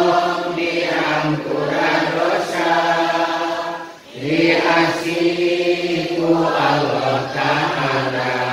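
Unaccompanied male chanting of a Sundanese nadhom, Islamic devotional verse, sung in long held phrases with a short break for breath about four seconds in.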